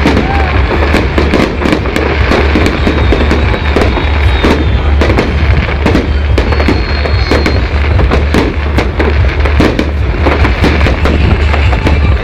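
Fireworks display: dense crackling and popping bursts with repeated bangs, over a steady low rumble, loud on the recording. A thin high whistle sounds for about a second near the middle.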